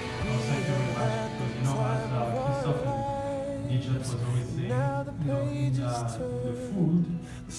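Background music: a song with a voice singing a melody over guitar accompaniment.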